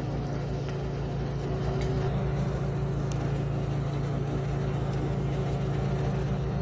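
Steady low machine hum running under the whole stretch, with a couple of faint light clicks about two and three seconds in.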